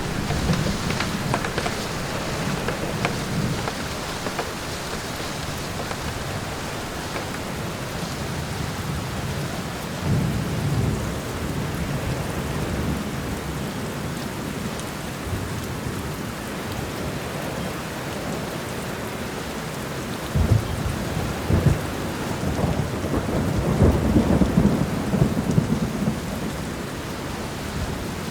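Steady rain falling in a forest while thunder rolls several times. The loudest rumble starts with a sharp onset about two-thirds of the way in and swells near the end.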